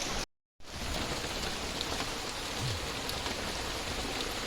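Steady rain falling, an even hiss of drops, cut by a brief total dropout about a quarter second in.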